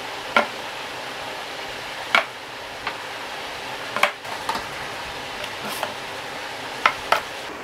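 Makeup products being handled and set down, making about eight sharp clicks and taps at uneven intervals over a steady background hiss.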